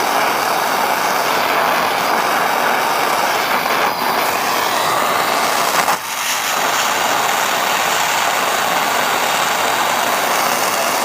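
Soldering torch flame blowing steadily, heating the steel buckle before the hard solder is added. It dips briefly about six seconds in, then carries on as before.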